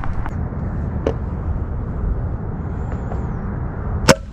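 A single sharp crack of a pellet air rifle shot near the end, over a steady low rumble; a softer click comes about a second in.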